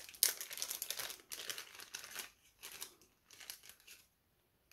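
Plastic accessory packaging crinkling and rustling as it is handled. It is busy for the first two seconds, then breaks into a few scattered crackles that die away.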